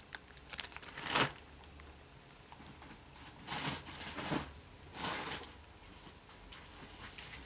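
Faint, intermittent rustling of plastic bags holding thread bobbins as they are handled, in about half a dozen short bursts, the loudest about a second in.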